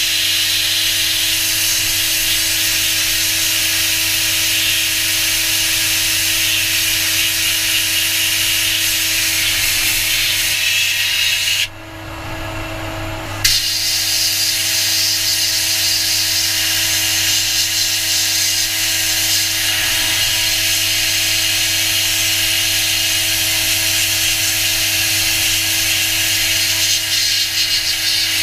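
Sandblaster blast gun hissing steadily as abrasive is blasted onto small steel jack parts inside a blast cabinet, over a steady low hum. The blast stops for about two seconds near the middle, then starts again.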